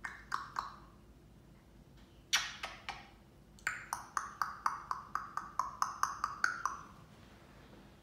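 African grey parrot making short, sharp pinging clicks. There are a few at first and a loud one about two and a half seconds in, then a quick run of about a dozen at roughly four a second.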